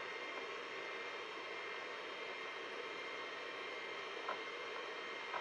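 Steady hiss and faint whine of a running 286 PC, its fan and Seagate ST-251 MFM hard drive, while a virus scan reads the disk. There are two faint clicks near the end.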